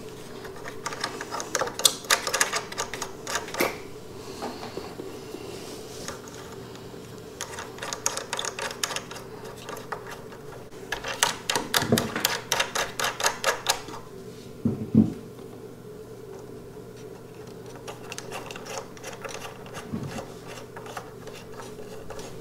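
Rapid clicking and rattling in several short runs, with a few single knocks, as speaker wire is worked into and tightened down in the red plastic-capped binding posts of a Klipsch RP-6000F tower speaker. A steady low hum runs underneath.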